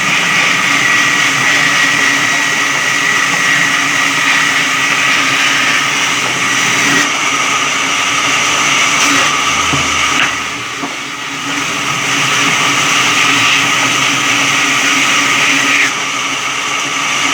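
Electric sawmill saw running and cutting through wood, a loud steady whine that eases briefly about ten seconds in.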